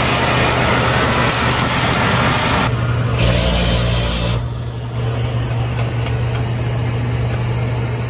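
M1 Abrams tank's gas-turbine engine running as the tank drives. For the first few seconds it is a loud rushing hiss; about three seconds in this drops abruptly to a steadier, lower hum.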